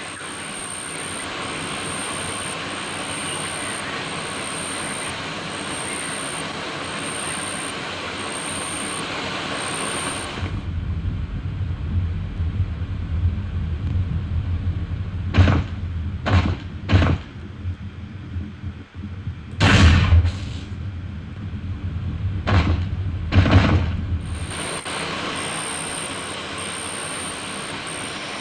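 Designed water ambience that moves from above the surface to below it and back. It starts with a bright, even water hiss and a high tone pulsing at a steady beat. About ten seconds in it cuts to a muffled, low underwater rumble with several short, loud whooshes, and near the end it returns to the above-water hiss and pulsing tone.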